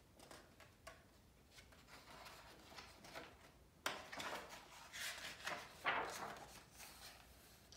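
A page of a hardcover picture book being turned by hand: faint paper rustling, with a sharper flick of the page about four seconds in and a few louder rustles after it.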